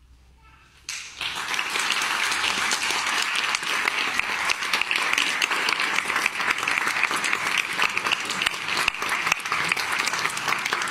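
Concert audience applauding: after about a second of near silence, dense clapping breaks out all at once and carries on evenly.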